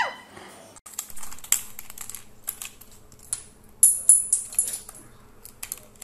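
Mechanical keyboard keys and keycaps clicking and rattling as a white cockatoo picks at them with its beak, prying keycaps off the switches. The clicks come irregularly, with a cluster of louder snaps about four seconds in.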